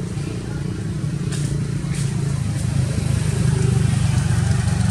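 An engine running steadily with a low rumble, growing a little louder about three seconds in.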